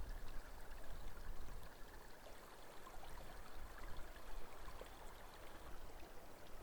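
Wind buffeting the microphone outdoors, an uneven low rumble under a steady hiss, with scattered faint ticks.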